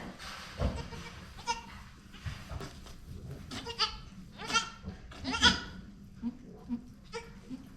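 Goats bleating: a few pitched calls in the second half, followed by several short, low grunting calls near the end, around a doe with her newborn kids.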